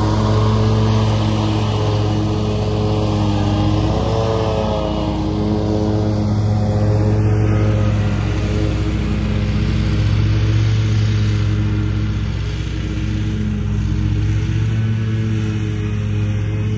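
Ferris ISX 800 zero-turn mower's EFI Kawasaki V-twin engine running steadily while mowing, a constant drone with a brief wobble in pitch about four seconds in.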